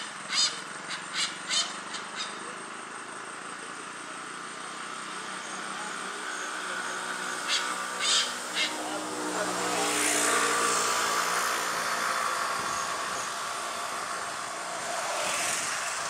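A pied hornbill calling in short, sharp notes: a run of about five in the first two seconds, then three more a little after the middle. A steady rushing background noise swells about ten seconds in and again near the end.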